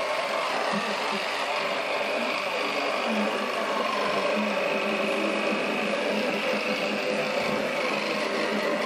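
Electric toothbrush buzzing steadily while brushing teeth.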